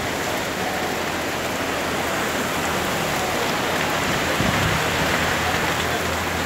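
Heavy rain pouring down steadily in a storm, with a low rumble coming in about halfway through.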